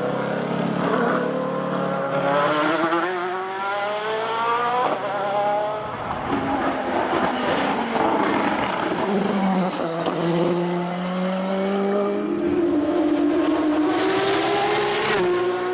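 Race car engine at full throttle, pulling hard up through the gears: its pitch climbs and drops at each upshift, twice in the first five seconds, then it runs at a steadier, lower pitch.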